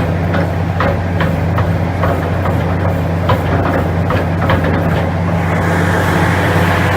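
Hitachi ZX450LC excavator's diesel engine running steadily, with light clicks or knocks from the working equipment repeating about twice a second for the first five seconds. Near the end the sound turns hissier as the load changes.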